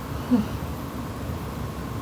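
Steady background hiss with one brief, pitched snort from a sleeping person about a third of a second in.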